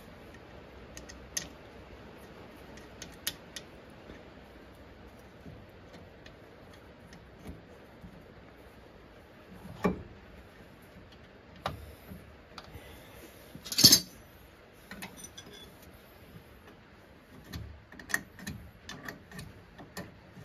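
Scattered metallic clicks and clinks of tools and bolts at a van's front brake caliper as its two caliper bolts are refitted. Two louder knocks come about ten and fourteen seconds in, and a run of quick ticks near the end.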